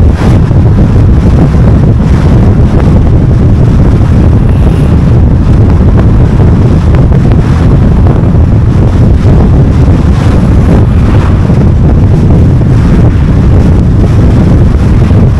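Steady, loud rumble of a car driving at speed: wind buffeting the microphone over road and tyre noise.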